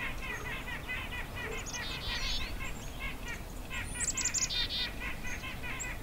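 Small songbirds chirping in a busy, continuous chorus of quick chirps, with short runs of high, thin notes about two seconds in and again about four seconds in.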